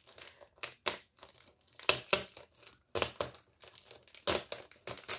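Gift wrapping paper crinkling and rustling in a string of irregular crackles as hands pick carefully at the taped paper.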